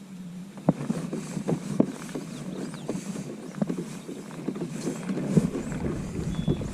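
Water slapping and knocking against a kayak hull, in a rapid irregular run of sharp knocks. Wind buffets the microphone from about five seconds in.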